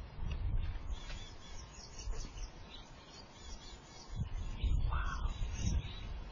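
Outdoor field ambience with irregular low rumbling and a single short bird call, rising then falling, about five seconds in.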